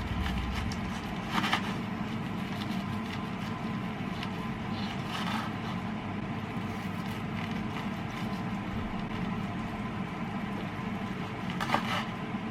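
A steady hum runs throughout, and a knife slices through a crisp fried pork cutlet with a few short crunches: about one and a half seconds in, around five seconds in, and near the end.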